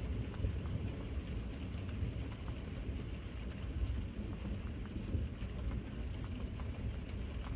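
Steady rain falling, with scattered individual drops ticking over a continuous low rumble.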